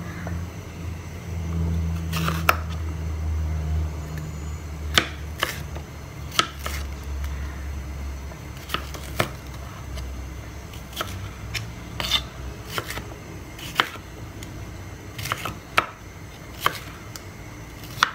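Chef's knife slicing a red bell pepper on a plastic cutting board: sharp, irregular knocks as the blade meets the board, roughly one a second, starting about two seconds in. A low hum in the first half fades out.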